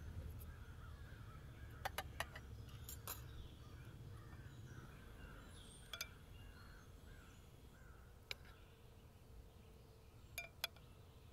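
A few sharp metallic clinks of cutlery against a china plate and glass serving dish, over faint outdoor background with birds chirping softly.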